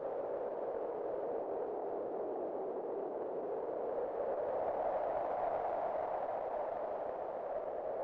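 Wind blowing as a steady rushing noise with a hollow, whistly pitch. About halfway through it swells and rises slightly in pitch, then eases back.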